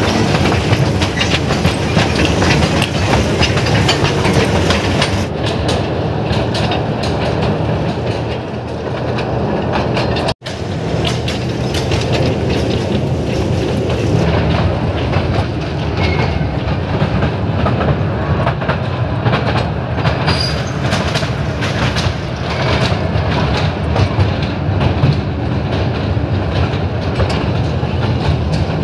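Narrow-gauge joy train running along its track, heard from aboard: a steady rumble with continuous clickety-clack of the wheels over the rails. The sound cuts out for an instant about ten seconds in.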